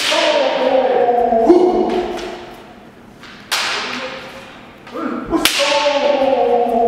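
Bamboo shinai strikes cracking on kendo armour, three sharp hits with echoing tails in a large hall, followed by long drawn-out kiai shouts from the fencers after the first and last hits.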